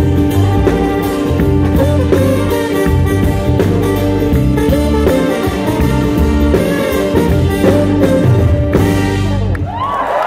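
Live band playing, a trombone carrying the melody over bass and drums. The music stops just before the end and the audience begins to cheer.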